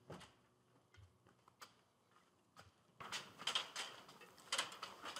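Quiet room with a few faint clicks, then from about three seconds in a run of soft knocks, footsteps and rustling as a person comes in through a door.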